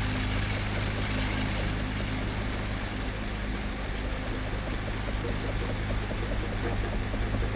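Petrol lawn mower engine running steadily, with a rapid ticking that grows stronger near the end.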